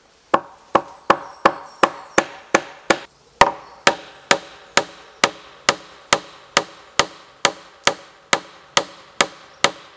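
Hammer blows on a log rafter-to-post joint of a timber shelter frame, driving a fixing home. The strikes are steady, about two a second, with a brief pause about three seconds in, and each one rings briefly.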